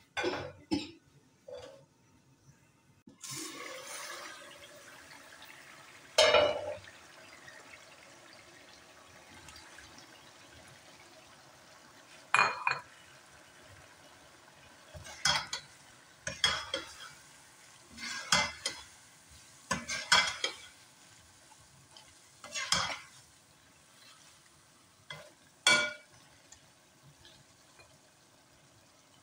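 Aluminium pan lid clinking as it is lifted, then the curry sizzling faintly in the pan. A loud clatter comes about six seconds in, and after that a spatula scrapes and knocks against the aluminium pan in a string of separate strokes as chicken and okra are stirred.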